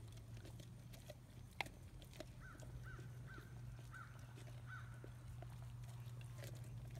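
Boxer-mix dogs chewing raw salmon heads: faint scattered crunches and clicks, with one sharper crack about a second and a half in. A bird chirps five times in the background midway, over a low steady hum.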